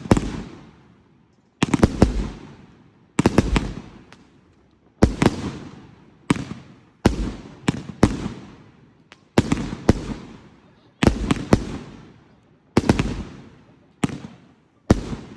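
Fireworks display: aerial shells bursting one after another, about a dozen loud bangs, some in quick pairs or clusters, each sharp crack trailing off into a fading rumble before the next.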